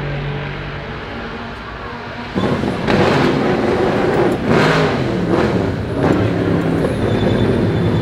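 Vintage race car engines running: a steady lower engine note, then about two and a half seconds in a much louder, rougher engine sound cuts in, with several brief sharp peaks.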